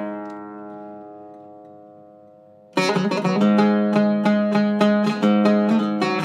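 Zaryab Iraqi-style oud with a cedar top and Pyramid strings, played with a plectrum. A chord struck just before the start rings and fades, and almost three seconds in a run of quick plucked notes begins.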